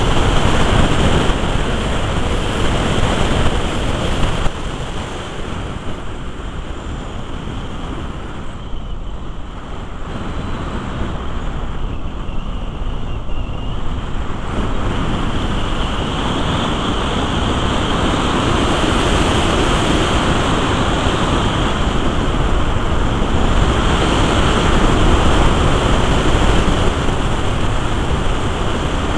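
Rushing airflow and wind buffeting on the on-board camera of a Musger MG12a glider in flight. It is a steady noise that drops a few seconds in and then slowly builds again.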